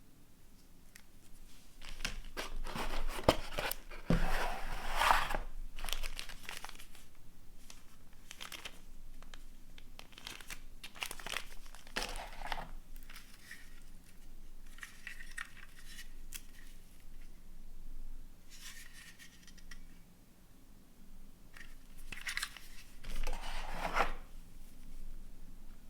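Packaging being handled: paper and plastic wrapping rustling and crinkling in several spells, with small sharp clicks and knocks between them. The loudest handling comes a couple of seconds in and again near the end.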